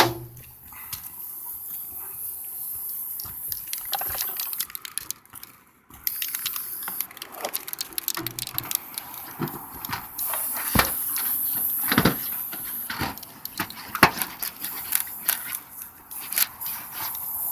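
Sections of a tubular skylight's tube being handled and pushed together to interlock: scattered clicks, knocks and scraping, with a brief lull about five seconds in.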